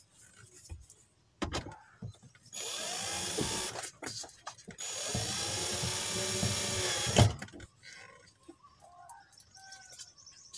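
Cordless drill driving screws into a car's interior panel: a couple of clicks, then two motor runs of a second or two each, the pitch rising and falling as the screw goes in. The second run ends in a sharp knock.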